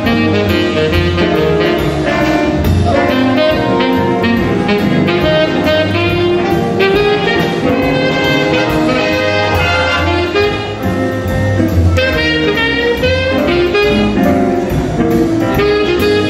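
Live jazz band playing: saxophones and brass carrying the tune over a rhythm section of piano, guitar and upright bass.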